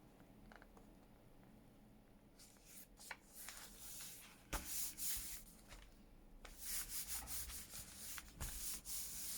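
Paper being rubbed and rustled by hand in stretches of scraping, starting a couple of seconds in, with a few soft knocks.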